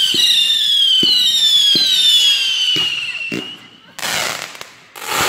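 Fireworks going off: a loud whistling firework, its shrill tone sliding slowly downward for about three seconds, with a few pops under it. Near the end come two short loud hissing rushes, about a second apart.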